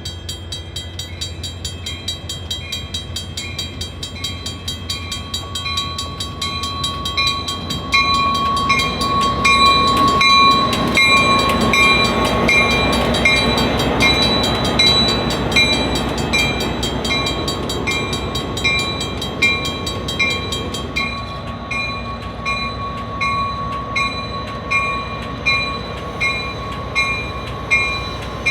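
Diesel-hauled train passing a grade crossing while the crossing bell rings in quick, even strokes. The train's rumble and wheel noise swell about a third of the way in and ease off after the middle, and the bell keeps ringing.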